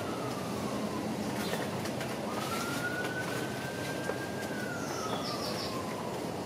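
A distant siren wailing: a single tone climbs quickly, holds, then slides slowly down, starting again every four or five seconds, over a steady low rumble. A few short high chirps come about five seconds in.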